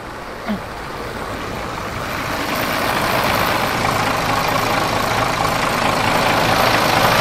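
The diesel engine of an SDLG LG936L wheel loader is idling. It is still running after the operator tried to shut it down, because its engine-stop cable has snapped. It grows louder over the first few seconds, then runs steadily.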